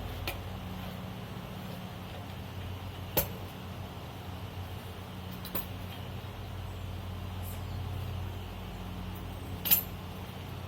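A steady low engine hum, with a few sharp metal clinks from tire-changing tools; the loudest clinks come about three seconds in and near the end.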